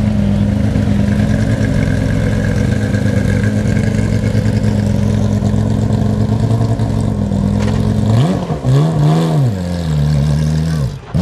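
Tuthill-prepared Porsche 997 GT3 R-GT rally car's 3.8-litre flat-six idling loudly, then blipped twice about eight seconds in, the revs rising and falling, before settling back to a steady idle.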